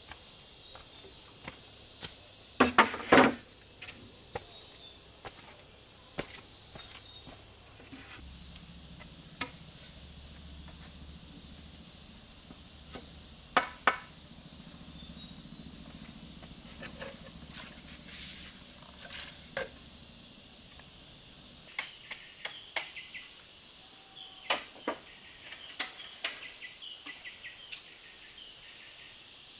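Rainforest insects buzzing steadily in the background, broken by sharp knocks and cracks, a tight cluster of them about three seconds in and more scattered through the rest. Short, high chirping calls come in over the last third.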